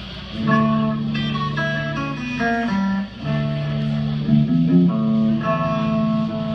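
Guitar playing held notes and chords, with a brief gap about three seconds in.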